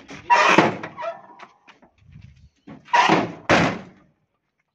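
Steel cab door of an Eicher 11.10 truck being slammed shut, three loud bangs: one about half a second in and two about half a second apart around three seconds in.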